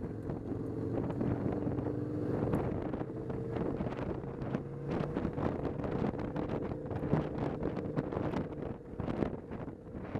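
Motorcycle engine running steadily at cruising speed while riding, with wind buffeting the microphone in frequent gusts.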